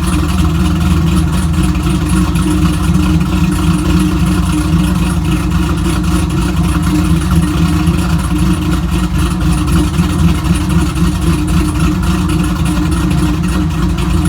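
2002 Camaro SS's cammed LS1 V8 running steadily and loud.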